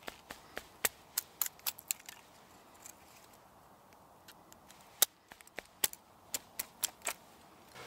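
Knife splitting thin fatwood sticks into matchsticks against a wooden stump: a run of sharp cracks and taps, about seven in the first two seconds, then after a pause about seven more from about five to seven seconds in.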